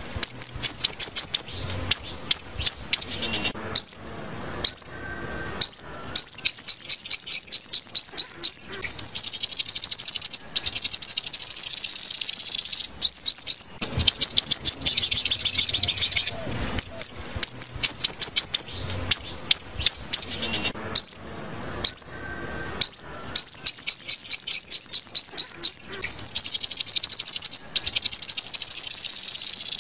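Sunbird song on a lure recording: rapid runs of high, thin, downslurred notes, delivered in phrases with short gaps between them, with a few longer unbroken trills.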